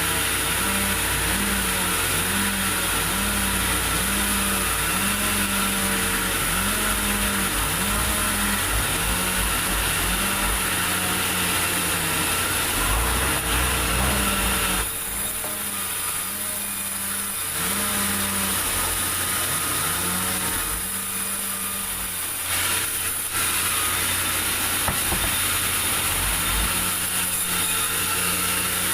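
Sawmill saw running and cutting durian wood over a steady machine drone, with a regular pulsing about one and a half times a second. The sound thins out twice for a couple of seconds.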